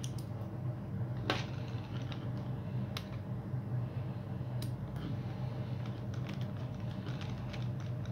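Light clicks and ticks of a screwdriver bit and small screws fastening the plastic pull-starter housing onto a small nitro model engine, over a steady low hum. There is a sharper click about a second in, a few spaced clicks after it, and a run of quicker light ticks near the end.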